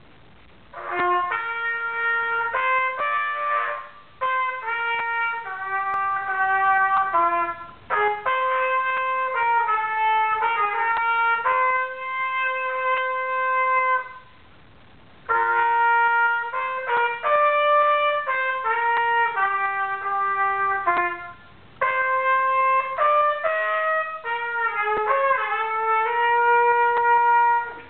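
Solo unaccompanied trumpet playing a school alma mater melody in held notes. It comes in four phrases with short pauses for breath between them; the longest pause is about halfway through.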